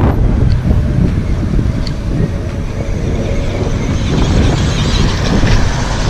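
Battery-powered 1/12-scale RC truck driving over dirt and concrete, its electric motor whining more strongly about four seconds in. Heavy low rumble from wind on the microphone runs underneath.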